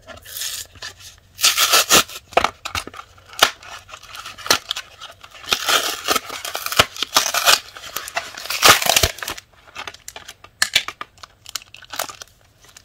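Trading-card blister-pack packaging being torn open by hand: cardboard and plastic ripping and crinkling in several loud bursts, the longest in the middle, with sharp clicks and snaps between them.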